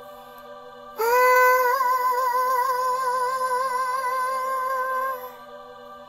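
'Heavenly' music: a single voice sings one long high 'aah' with a slight upward scoop at the start and an even vibrato, held for about four seconds over a soft sustained chord.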